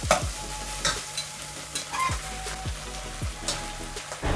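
Food sizzling in a frying pan while a spoon stirs it, with sharp knocks and scrapes of the utensil against the pan about once a second, just after chopped tomatoes have been added.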